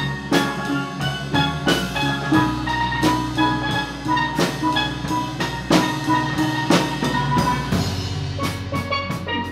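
A steel band playing: steel pans ringing out a melody over a drum kit keeping a steady beat. The music changes shortly before the end.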